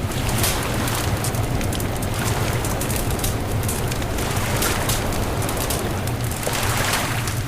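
Bonfire crackling, with frequent sharp pops and snaps, over a steady low rumble.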